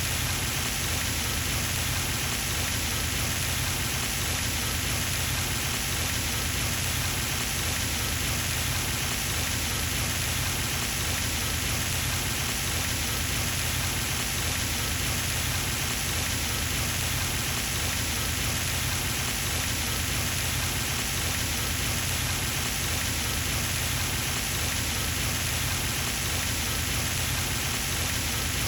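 Pond fountain's water spray falling back onto the pond surface: a steady, unbroken splashing hiss like heavy rain.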